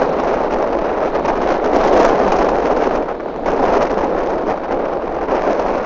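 Wind rushing over the microphone in gusts, a steady loud roar that swells and eases every second or so.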